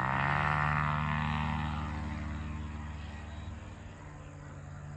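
Ultralight aircraft's engine and propeller droning in flight, the pitch dipping slightly at the start, then fading gradually as the plane moves away.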